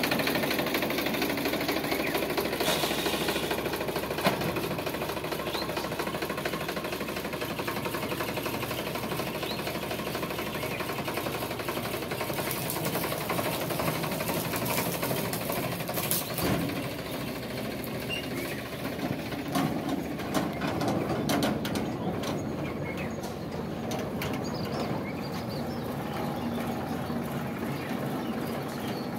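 Sonalika 745 tractor's three-cylinder diesel engine running steadily with a knocking clatter just after starting. Near the end the tractor pulls away with its trailer hitched.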